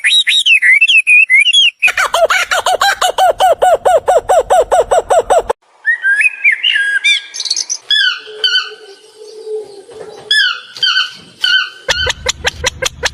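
Bird calls and songs of several kinds, changing abruptly from one to the next as if spliced together. Chirps give way about two seconds in to a fast run of repeated notes, about seven a second. That breaks off into assorted short calls, and near the end comes a quick series of clicks.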